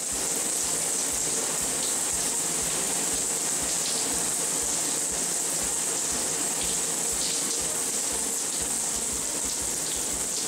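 Shower running: a steady spray of water splashing onto a mesh bath scrubber and into the bathtub.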